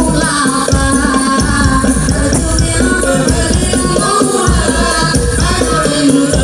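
Live sholawat, Islamic devotional singing: a woman's voice sings a melismatic melody over hand percussion with tambourine-like jingles, amplified through loudspeakers.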